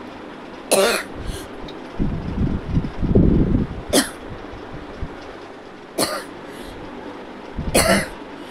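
A person coughing: four short, sharp single coughs a couple of seconds apart, with a low rumble between the first and second.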